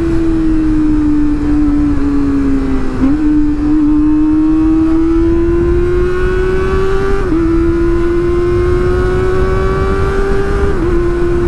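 Kawasaki ZX-25R's inline-four engine running at high revs under way. Its pitch eases down, then climbs slowly, with short steps at gear changes about 3, 7 and 11 seconds in. Wind rumbles on the microphone underneath.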